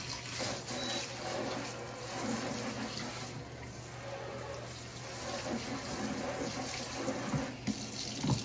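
Kitchen sink tap running, water splashing steadily as hands are rinsed under it, with a couple of light knocks near the end.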